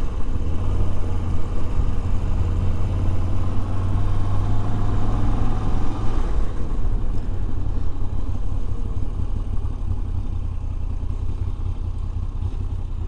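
Moto Guzzi V85's air-cooled V-twin engine running as the motorcycle rides along, a steady low engine note. About six seconds in the higher part of the sound falls away and it grows gradually quieter.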